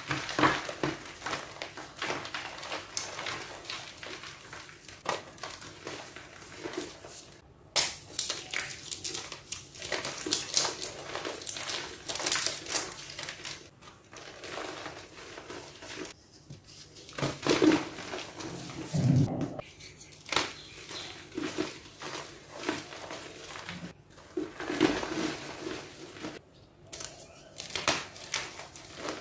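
Molded blocks of reformed gym chalk crushed and crumbled in bare hands: dry, dusty crunching and crackling that comes in irregular handfuls, with a few brief pauses between squeezes.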